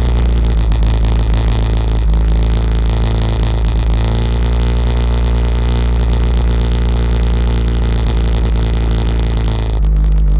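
ATV engine running steadily at low speed, its note shifting and getting a little louder near the end as the throttle changes.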